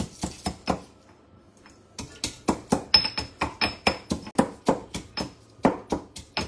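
Pestle pounding garlic cloves and black pepper in a mortar: sharp, rhythmic knocks about three or four a second, stopping for about a second near the start and then resuming, some strikes ringing briefly.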